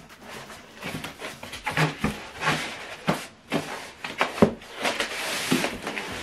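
Cardboard box and polystyrene foam packing being handled: a string of light knocks and rustles, with a longer scraping rub about five seconds in as the foam insert slides against the cardboard.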